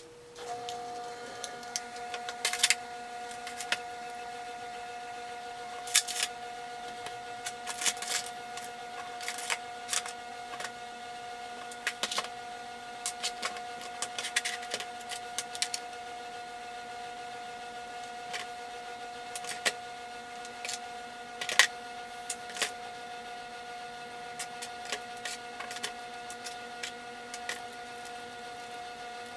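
Irregular clicks and clinks of metal jewelry and small electronics being lifted from a tin and set down on a table. A steady hum runs underneath.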